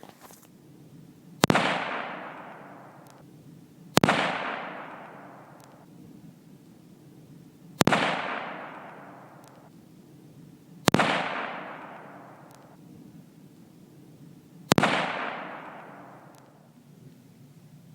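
Five rifle shots from a bolt-action Savage Axis in .22-250 Remington, spaced about three to four seconds apart, each sharp crack followed by an echo that dies away over about two seconds.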